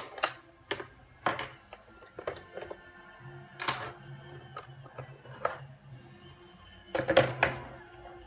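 Irregular sharp clicks and knocks of hard plastic parts of an iLife A4 robot vacuum being handled, with a quick cluster of louder knocks about seven seconds in.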